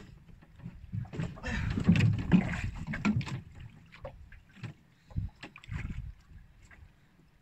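Knocks and rubbing against the wooden hull of a small boat as a handline and metal jig are handled, with a louder stretch of rushing noise from about one to three seconds in.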